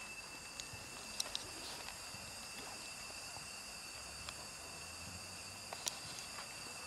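Cats eating dry kibble from a metal tray, heard as a few faint scattered crunches and clicks over a steady high-pitched hum.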